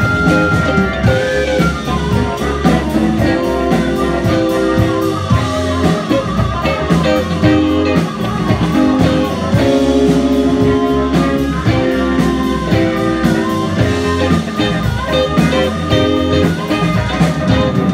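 Live blues-rock band playing: electric guitars over a drum kit with a steady beat.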